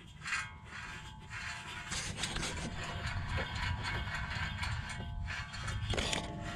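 Hand ratchet clicking in short runs as a fastener is turned during rear brake work, the clicks coming thicker near the end, over a steady low hum.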